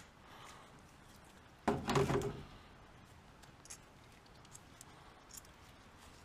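Handling noise from small metal parts and hand tools: a short clatter about two seconds in, then scattered light clicks and taps as loosened bolts are picked out by hand.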